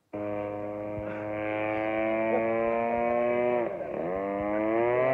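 The 120cc gasoline engine of a giant-scale Laser aerobatic radio-controlled plane running in flight, a steady buzzing drone. It cuts in suddenly at the start, then dips sharply in pitch a little before four seconds in and climbs back up.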